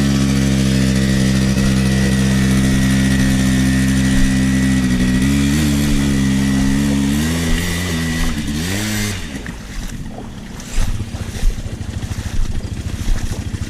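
A quad bike engine running hard at a steady pitch. Its pitch rises and dips a few times, then it drops away about nine seconds in, leaving a lower rumble with scattered knocks.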